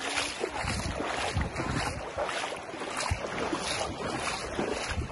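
Wind gusting against the microphone in low rumbles over the wash of small waves at the shoreline.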